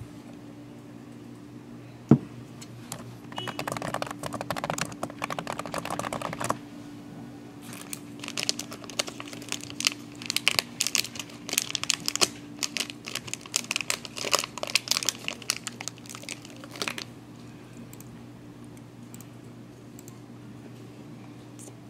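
A single sharp knock as a stainless-steel tumbler is set down on the desk about two seconds in. Then a plastic snack wrapper crinkles and tears as it is opened and handled, in two spells of dense crackling, the second running until about seventeen seconds in.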